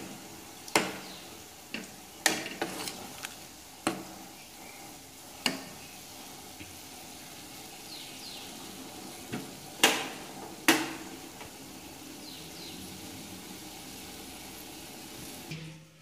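Metal spoon clinking and scraping against a metal pot while stirring instant noodles in boiling water, over a steady bubbling hiss. Sharp knocks come at uneven intervals, the loudest two about ten and eleven seconds in.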